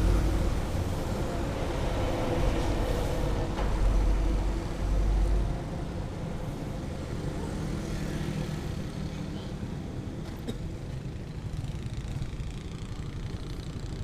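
Motorcycle on the move: engine and road noise with a strong low rumble that drops away about five and a half seconds in, leaving steadier, quieter running.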